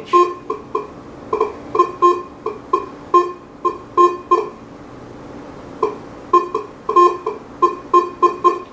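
White's Coinmaster GT metal detector with an NEL Tornado search coil sounding a quick run of short, identical beeps, about three a second, as a nickel is swept past the coil in an air test. The beeps pause for a moment about halfway through, then resume.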